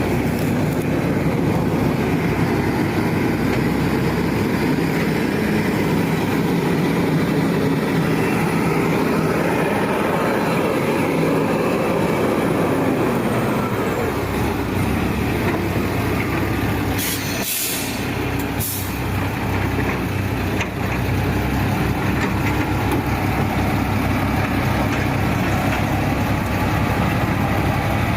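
Heavy logging truck's diesel engine running steadily under load, with two short hisses of air about two-thirds of the way through.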